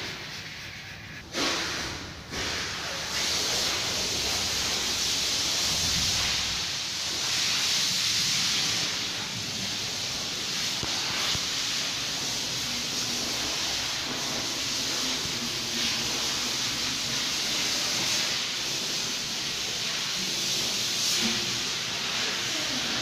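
A steady, high hiss of rushing air or spray. It starts with two short bursts in the first couple of seconds, then holds even.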